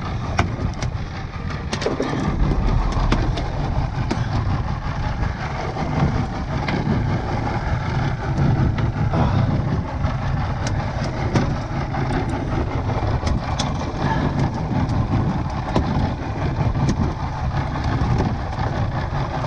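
Boat's outboard motor running steadily with a low rumble, under a haze of wind and water noise, with scattered light clicks as a hook and leader are handled on the deck.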